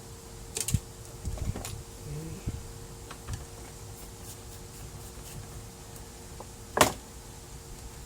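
Scattered plastic clicks and knocks from a laser printer's parts being handled and unclipped during disassembly, the sharpest click about seven seconds in, over a steady faint hum.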